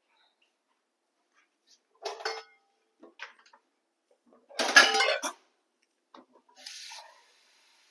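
Metal kitchen pots and utensils clanking in a few separate clatters, the loudest about halfway through, followed by a brief hiss near the end.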